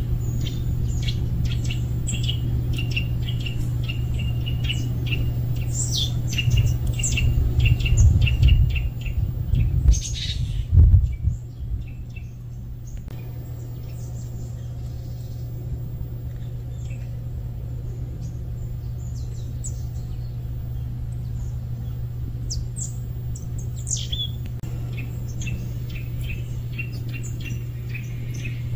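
Small birds chirping in quick runs of short high notes, thinning out in the middle and picking up again near the end, over a steady low rumble. Louder low rumbling surges come about a third of the way in.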